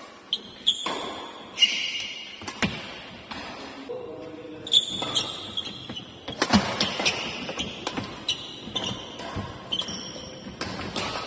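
Badminton rally in an indoor hall: irregular sharp cracks of rackets striking the shuttlecock, mixed with short high squeaks of shoes on the court floor.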